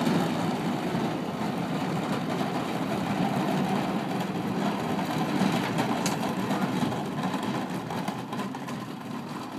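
Wheels under a heavy wooden roll-top desk rolling over asphalt as it is pushed: a steady, gritty rumble that eases a little near the end.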